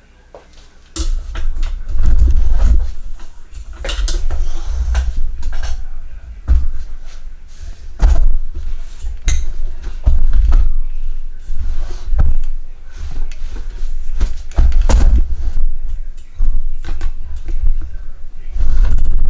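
Repeated knocks, clunks and low thuds of things being handled and set down, coming irregularly every second or so from about a second in.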